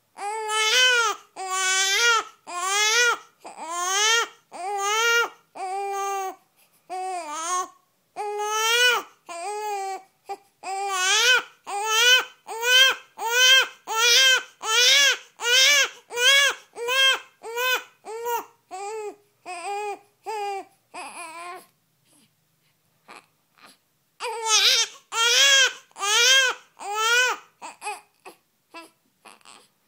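Two-week-old newborn who can't sleep, crying in repeated wails about one a second. The crying stops for about two seconds past the middle, starts again, and turns to shorter, fainter cries near the end.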